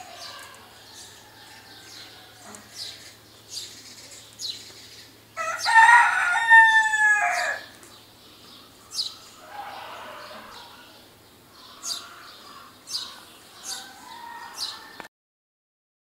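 A rooster crows once, loudly, for about two seconds, a little past a third of the way in. Short, sharp, high bird chirps come every second or so before and after it.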